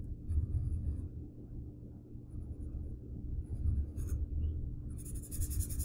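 Felt-tip permanent marker drawing on paper: a few short scratchy strokes, then steadier, busier scratching from about five seconds in, over a low background hum.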